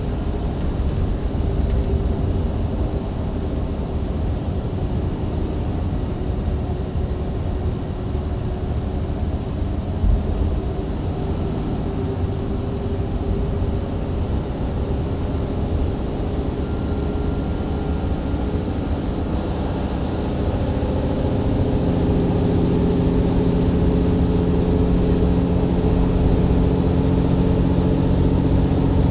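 Inside a Mercedes-Benz Citaro C2 LE hybrid bus with a Voith automatic gearbox, running at speed with steady engine and road rumble. About two-thirds of the way through, the driver kicks down: the engine takes on load and its note grows louder and stronger. A single thump comes about ten seconds in.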